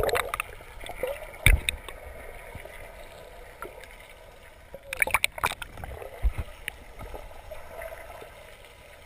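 Muffled underwater swimming-pool sound picked up by a camera held below the surface: water sloshing and gurgling. A few sharp knocks and splashes come about a second and a half in and again around five seconds in.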